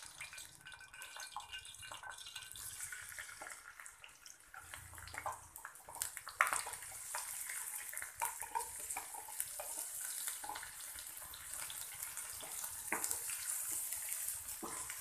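Chopped onions tipped into hot oil in a kadai and fried, a hissing sizzle that grows louder about halfway through, with clicks and scrapes of a wooden spoon stirring them.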